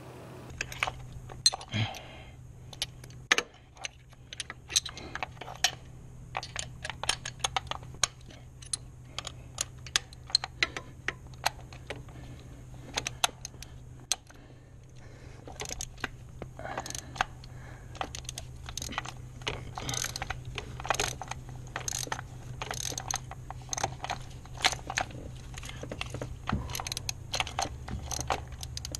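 Irregular light clicks and clinks of small parts and tools being handled while coil packs go back onto a Hemi V8, over a steady low hum.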